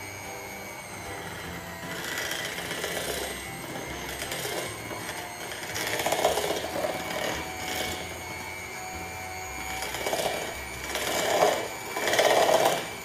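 Handheld electric mixer running on low speed, its motor giving a steady whine while the beaters churn butter and icing sugar in a bowl. The churning grows louder in spells, strongest about six seconds in and near the end.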